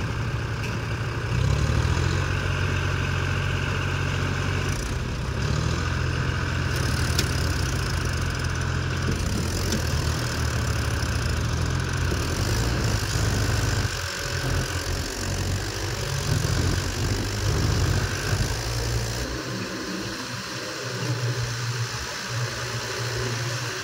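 Tractor diesel engines running, the Mahindra labouring while stuck in deep mud; the engine note stays steady, dips briefly about halfway through and thins out for a few seconds near the end.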